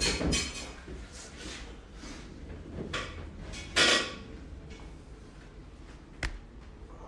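Rustling and shuffling noises with a few short breathy bursts, the loudest about four seconds in, and one sharp click a little after six seconds.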